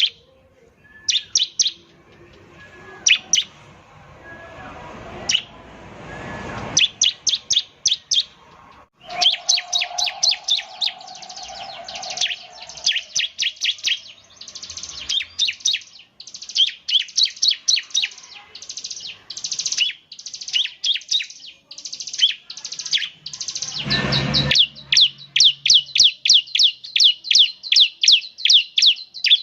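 Bar-winged prinia (ciblek) singing rapid-fire trains of sharp, high chipping notes. The song is scattered at first, then runs in fast, nearly continuous bursts, the 'nembak' (shooting) style.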